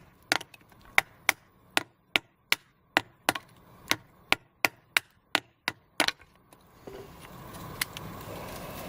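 Batoning: a baton strikes the spine of an Ozark Trails folding multitool's straight blade again and again, driving it into a piece of very hard wood to split kindling. There are about seventeen sharp knocks, roughly three a second, and they stop about six seconds in.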